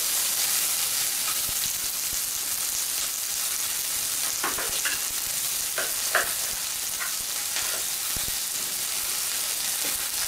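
Sliced red onion and garlic frying in oil in a pan, a steady sizzle. A few short knocks from a knife on a plastic cutting board come in the middle.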